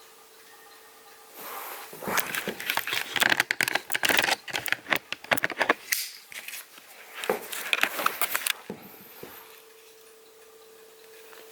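A cluster of rapid clicks, scrapes and crackling from about a second and a half in to about nine seconds, like hard plastic parts being handled. A faint steady hum runs before and after it.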